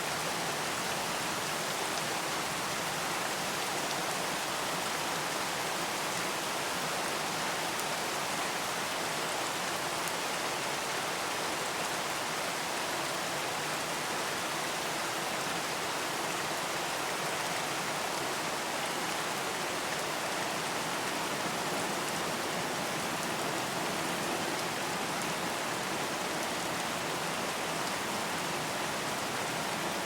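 Steady rain falling, an even hiss of many drops with no single drops or thunder standing out.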